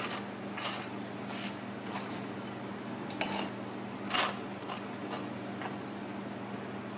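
Table knife spreading jam on toast: a series of short scrapes across the bread, about one a second, the loudest about four seconds in, over a steady low hum.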